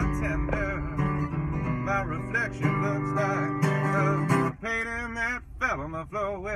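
A man singing with vibrato while strumming an acoustic guitar; about two-thirds of the way through the guitar stops briefly and the voice carries on alone.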